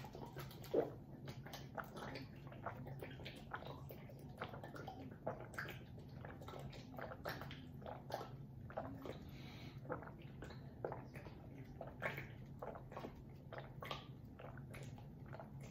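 A person gulping water from two plastic bottles held to the mouth at once: a continuous run of small swallows, glugs and wet clicks, a few a second.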